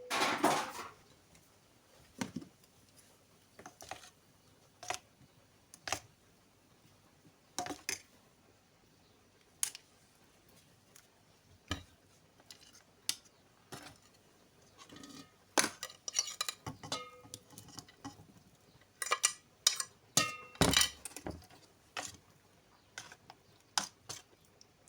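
Dishes, pots and cutlery being handled: scattered clinks and knocks at an irregular pace, some ringing briefly, with a busier clatter in the second half.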